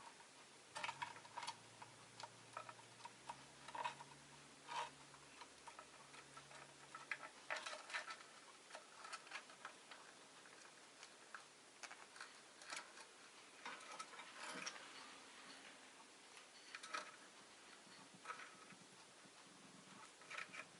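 Faint, irregular small clicks and ticks from a rosy-faced lovebird moving and pecking about its cage. A faint low hum lies under the first seven seconds or so.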